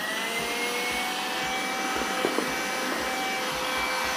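Kitfort handheld vacuum cleaner running: its motor whine rises in pitch as it spins up in the first second, then holds a steady high whine over the rush of air being drawn in.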